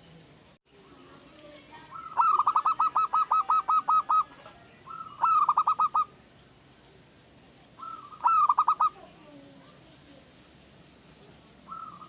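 Male zebra dove (perkutut) singing its cooing song: three phrases of rapid, evenly spaced coos, the first the longest at about two seconds, with a fainter phrase starting near the end. The bird is a raw, wild-caught male that has only just started singing regularly and is still learning its song.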